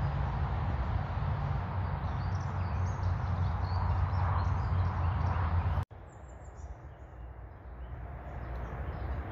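Woodland ambience with faint birds chirping over a low rumbling noise. About halfway through, the sound cuts abruptly to a quieter stretch where the bird chirps stand out more clearly.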